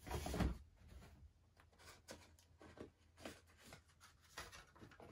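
Faint rustling and crinkling of paper stuffing being pulled out of new leather boots, in short crackles every half second or so, after a louder bit of handling noise at the very start.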